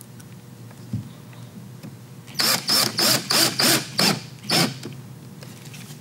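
Cordless drill/driver driving a small screw into the wooden pedalboard side to fasten the IEC socket, run in about seven short trigger bursts over two seconds as the screw seats. A light knock comes about a second in.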